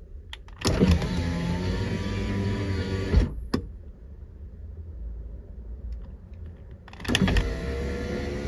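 Power window motor in a 2007 Nissan 350Z door driving the glass with a steady whine, stopping with a thump about three seconds in as the glass reaches the end of its travel, then starting again with a click about seven seconds in and running on.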